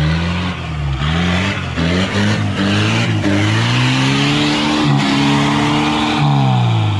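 Off-road SUV engine revving hard through deep mud, the revs dipping and rising several times, held high in the middle and dropping near the end, with a rough hiss of tyres churning the mud.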